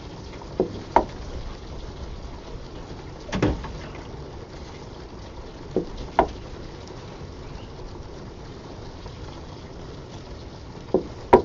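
Steam flowing and condensing in a 2-inch acrylic pipe with a steady watery hiss, its condensate-induced water hammer held down by about 1% added air. Pairs of sharp clicks from the bicycle pump adding the air come about every five seconds, three times, with a single duller thump in between.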